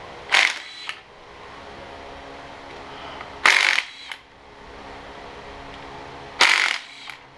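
Small handheld cordless power tool spinning a socket on the bolts of a tractor engine's adapter plate in three short runs of about half a second each, over a steady background hum.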